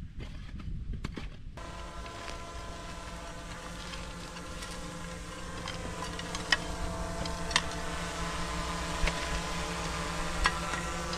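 A motor running steadily, setting in about a second and a half in, with scattered sharp clicks over it.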